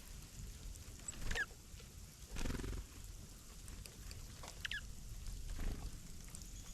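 Small wild birds giving short chirps, one about a second and a half in and another near five seconds, with brief soft rustles between them over a constant low rumble.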